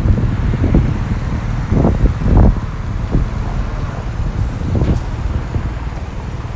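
Wind buffeting a phone microphone that has no windscreen: a heavy, uneven low rumble that flares in gusts, loudest about two seconds in.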